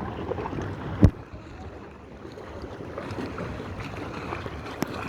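Steady wind and sea noise with one sharp, loud thump about a second in.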